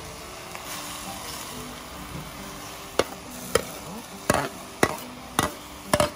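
Greens and pork being tossed in a stainless steel pot: a faint steady sizzle, then from about three seconds in, six sharp metallic clinks about half a second apart as the utensil strikes the pot. Faint background music underneath.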